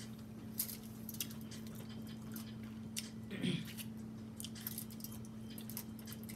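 Close-miked eating sounds from a person chewing seafood boil: scattered wet clicks and lip smacks. A short hummed 'mm' comes about three and a half seconds in. A steady low hum runs underneath.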